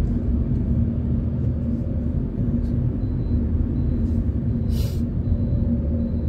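Steady low rumble of a car driving slowly, with engine and road noise heard inside the cabin, and a brief hiss about three-quarters of the way through.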